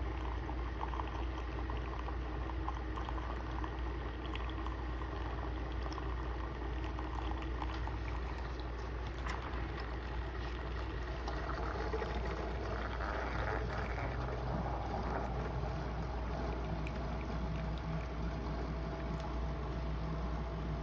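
CHULUX single-serve capsule coffee maker brewing: a steady low hum with liquid gurgling and running into the mug, busier around the middle.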